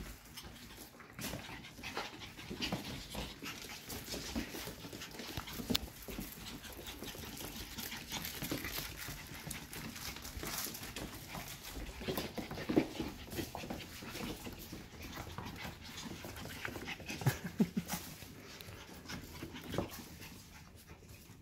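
Eight-week-old F1B mini goldendoodle puppies panting and scuffling at play, their claws clicking and tapping on a hardwood floor. There are a few brief louder sounds, the sharpest about halfway through.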